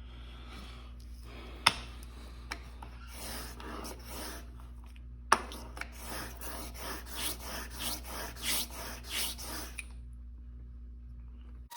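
Cutthroat S7 steel single-bevel broadhead rubbing back and forth on 800-grit sandpaper laid on glass in a KME sharpening jig, a rasping stroke each way, about two strokes a second in the second half, with sharp clicks about two and five seconds in. The strokes stop about ten seconds in.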